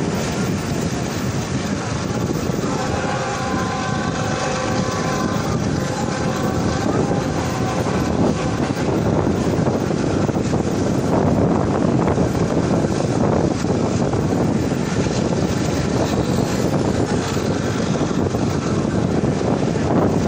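Steady running noise of a moving train, heard from inside a carriage as it travels along the track.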